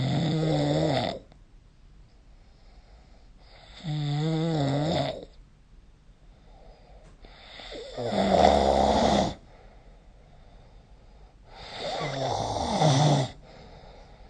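A person snoring in sleep: four loud snores roughly every four seconds, each lasting a second or so, with quiet gaps between.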